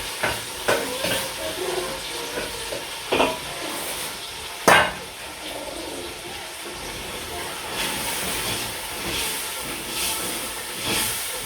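Food frying and sizzling in a pan while it is stirred, with a spoon scraping and clicking against the pan. There is one sharp knock a little under five seconds in.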